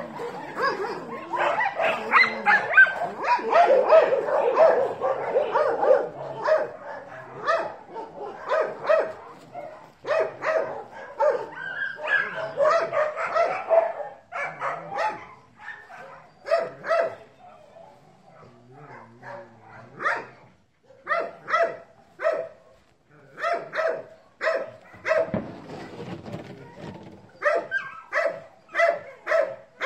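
Dogs barking: dense, overlapping barks in the first half, then a run of short separate barks, with a brief lull in between.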